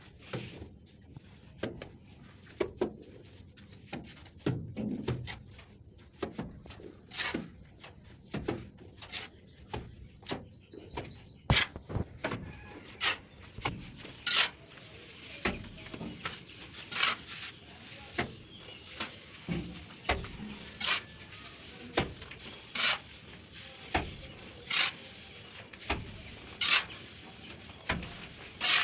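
Steel plastering trowel working cement-sand mortar onto a brick wall: sharp slaps and scrapes, irregular at first, then about one stroke every second or two, with softer scraping between them.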